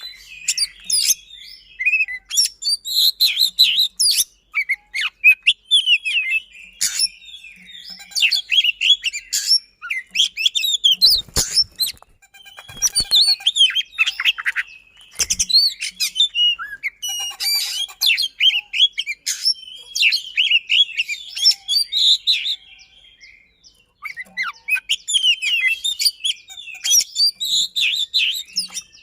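Oriental magpie-robin (kacer) singing a fast, dense song of sharp whistled notes and rapid rolls, in phrases broken by short pauses. A couple of sharp clicks come near the middle.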